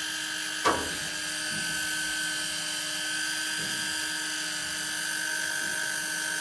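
Daiwa electric fishing reel motor running steadily under load, a constant high-pitched whine as it winds line in against the weight of a hooked fish on the bent rod. A single short, sharp sound is heard about a second in.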